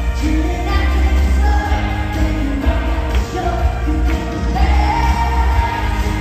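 Live pop-country song in a large hall: a woman sings lead into a microphone over a loud full band with heavy bass and drums.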